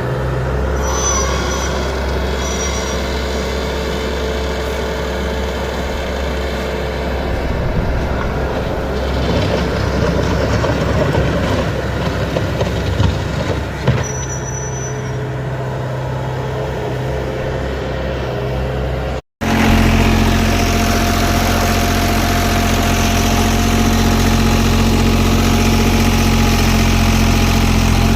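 Heavy diesel paving machinery running steadily, with some irregular mechanical clatter in the middle. After a brief cut about two-thirds of the way through, a louder engine runs at a constant pitch with a steady whine.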